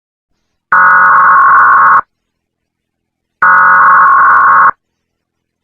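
Emergency alert end-of-message data tones: two harsh, buzzing digital bursts, each about a second and a quarter long, about a second and a half apart.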